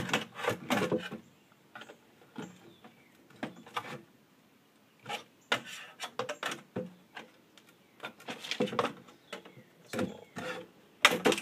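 Flathead screwdriver prying at an LCD monitor's sheet-metal frame and plastic housing, in irregular bursts of clicks, knocks and scrapes with short pauses between them.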